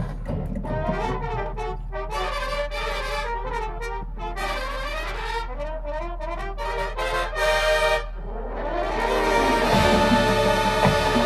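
High school marching band's brass section playing a moving passage. It breaks off about eight seconds in, then swells into a loud sustained chord.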